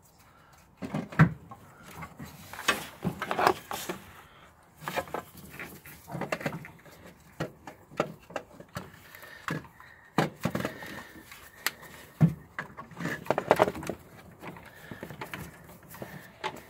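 Irregular knocks, clunks and scrapes of a Ford 2.0 TDCi alternator being wiggled loose by hand and worked out of a cramped engine bay, bumping against the surrounding brackets and housings.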